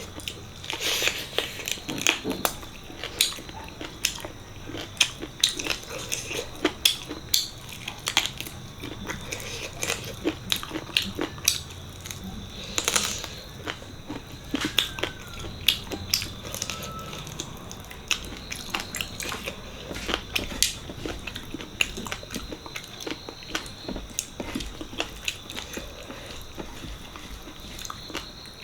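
Close-miked eating sounds from a meal of mutton leg (paya) curry and rice: chewing, wet smacking and sucking, as a steady run of short, irregular clicks and smacks.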